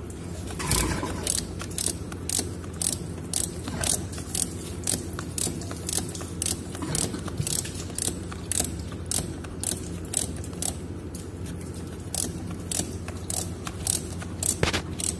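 Ratchet wrench clicking as it works a bolt on a chilled-water strainer cover, in a steady rhythm of about two clicks a second, over a steady low hum.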